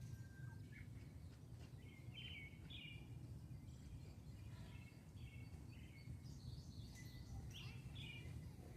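Faint outdoor ambience: small birds giving short high chirps in scattered groups over a low, steady background rumble.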